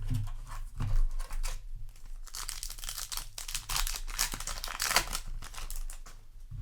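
Crinkling and rustling of a foil trading-card booster pack and cards being handled, with a dense run of crackling from about two to five and a half seconds in.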